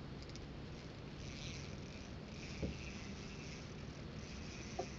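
Faint steady outdoor background noise, a low rumble with some higher hiss, broken by a single light click about two and a half seconds in and a couple of soft ticks near the end.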